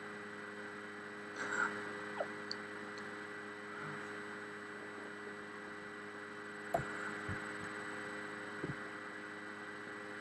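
Steady electrical hum and hiss of an open phone line while a call is being transferred, with a few faint clicks.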